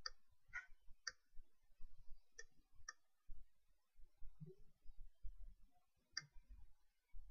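Faint, scattered clicks on a computer, about six at uneven intervals, with soft low thumps in between.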